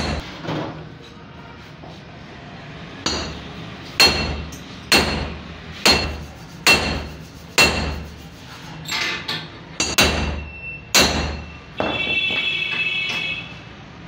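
A hammer striking metal engine parts: about ten sharp blows, roughly one a second, each with a short metallic ring. Near the end comes a second or so of continuous metallic ringing.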